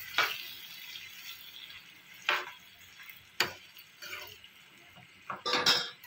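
Steel ladle stirring fish pieces in thick masala in a stainless steel frying pan: a soft sizzle under half a dozen separate scrapes of the ladle against the pan, the loudest a double scrape near the end.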